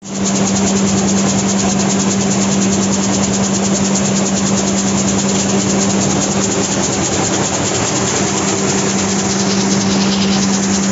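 5XZ-6 gravity separator running while cleaning coffee beans: a steady loud hum under a dense, very fast rattle and hiss.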